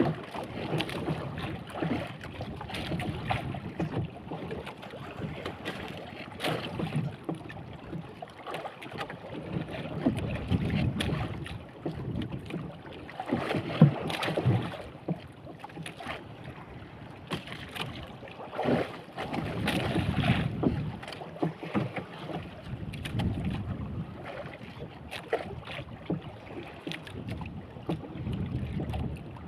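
Sea water slapping and splashing against the hull of a small boat in choppy water, with wind on the microphone. Scattered short knocks, one sharper about halfway through.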